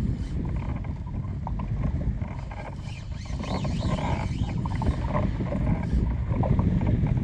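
Wind rumbling on the microphone over water rushing along the hull of a small open boat at sea, with a faint wavering high whine.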